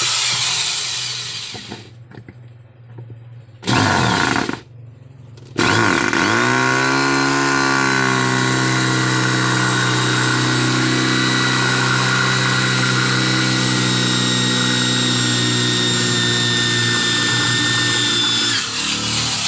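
Electric drill run in reverse on the seized bolt of a washing machine's wash gearbox: a short burst, another about four seconds in, then from about six seconds a run that rises in pitch and holds steady until it winds down near the end.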